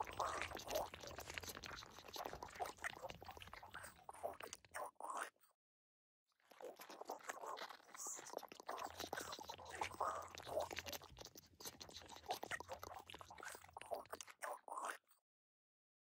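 Squishy bug-crawling sound effect: a dense run of wet clicks and crackles that cuts off about five seconds in, resumes about a second later, and cuts off again near the end.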